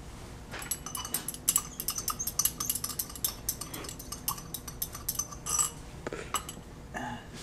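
Glass stirring rod clinking quickly and repeatedly against the inside of a small glass beaker as a titration sample of oil in alcohol is stirred, each clink ringing briefly. A couple of duller knocks follow near the end.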